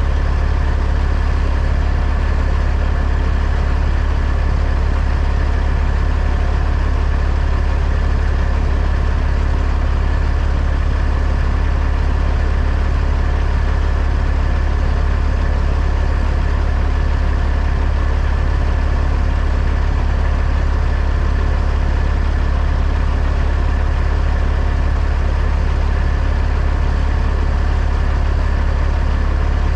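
Truck engine running steadily: an unchanging deep drone.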